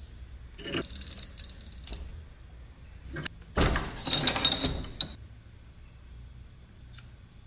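Steel brake-line flaring tool clinking and rattling as its yoke and clamp bar are worked off a brake line in a bench vise, in two bursts: one about a second in and a louder one near the middle, with a few single clicks between.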